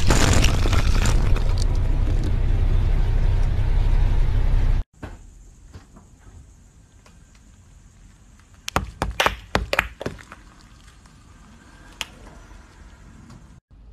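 A car tyre rolling onto a squishy bead-filled toy and bursting it, over a loud low rumble. After a sudden drop in level about five seconds in, a tyre crushes a row of laundry detergent pods: a quick cluster of sharp pops and crackles, then one more click near the end.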